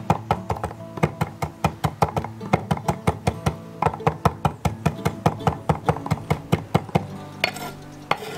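Chef's knife chopping fresh parsley on a wooden cutting board, quick chops about four to five a second that stop about seven seconds in, over acoustic guitar music.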